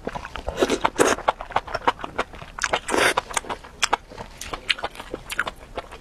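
Close-up eating sounds: a person slurping stringy noodle-like food off chopsticks and chewing it, with wet lip smacks and clicks. Longer slurps come about half a second in and again around three seconds in.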